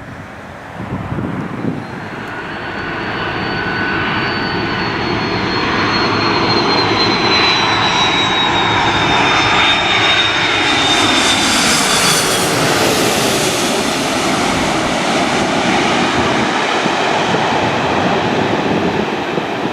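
Airbus A330 twin-jet airliner on approach passing close by. A high engine whine slowly falls in pitch as it goes past, over a jet rumble that builds over the first few seconds and then stays loud.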